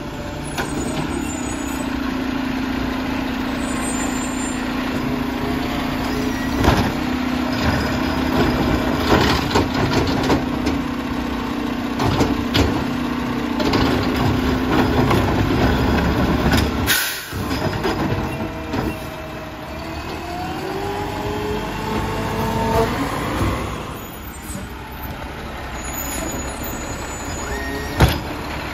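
Mack LR garbage truck running while its McNeilus ZR automated side arm grabs a wheeled cart, lifts it and tips it into the hopper, with a steady hydraulic whine over the engine for the first half and clunks of the cart against the arm. A short burst of air hiss comes about halfway through, then the hydraulic pitch glides up and down as the arm lowers the cart back to the curb.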